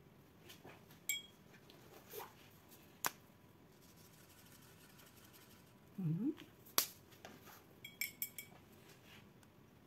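Scattered clicks, taps and small metallic clinks of craft tools being picked up and set down on a work table, with a short low creak about six seconds in.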